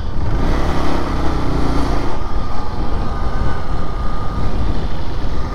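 Motorcycle running on the road, its engine sound mixed with heavy wind rush on the microphone.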